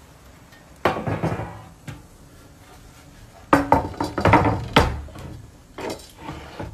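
Clattering knocks and clinks of a chopping board, knife and dishes being put down and handled. A short burst comes about a second in, a denser run of knocks follows in the middle, and a few lighter ones come near the end.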